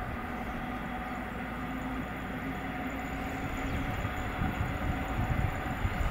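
Newag Griffin EU160 electric locomotive accelerating with a passenger train as it approaches: a steady electric hum over a low rumble of wheels on rails that grows louder over the last couple of seconds.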